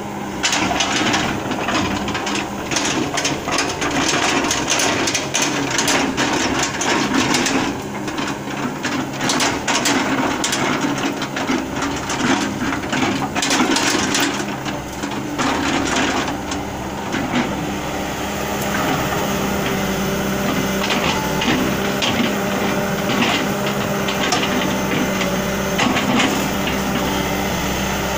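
Sumitomo hydraulic excavator's diesel engine running steadily while its log grapple knocks and clatters rubberwood logs onto a lorry. The wooden knocking is frequent for the first two-thirds, then thins out, leaving mostly the engine running.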